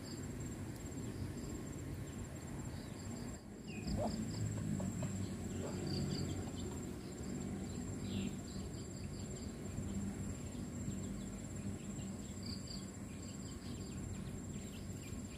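Insects calling: a steady high-pitched trill, with short runs of chirps breaking in every few seconds, over a low, steady background noise.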